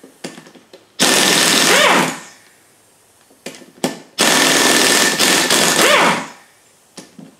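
Pneumatic impact wrench hammering as it loosens the rocker-shaft bolts on a Subaru cylinder head, in two bursts: a short one about a second in and a longer one of about two seconds near the middle. A few light clicks come between them as the socket is moved to the next bolt.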